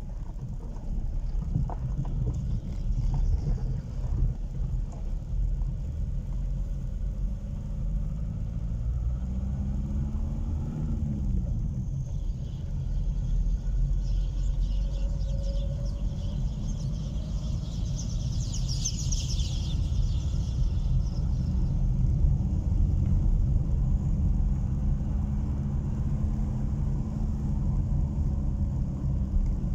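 Car engine running and road rumble heard from inside the cabin while driving slowly, the engine note rising and falling about ten seconds in. A brief high rattle sounds about two-thirds of the way through.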